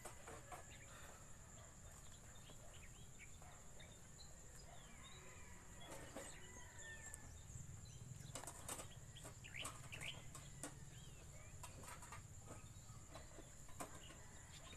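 Faint scratching and rustling of loose soil scooped by hand and pushed into tin cans, with scattered light clicks and patters. A steady high insect drone and a few faint bird chirps sit behind it.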